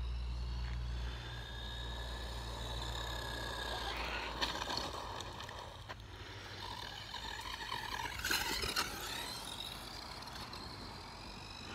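The electric motor of an Arrma Raider RC buggy whining as it drives, its pitch sliding up and down with the throttle. There is a low rumble through the first few seconds and a louder rough burst about eight seconds in.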